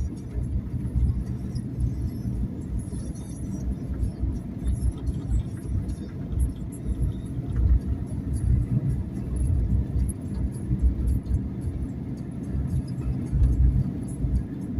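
Low, steady rumble of a car's engine and tyres on the road, heard from inside the moving car.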